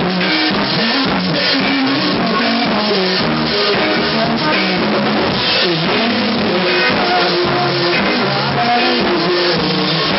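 Live rock band playing loud: drum kit with crashing cymbals and electric guitar through amplifiers. The recording is harsh and poor in quality.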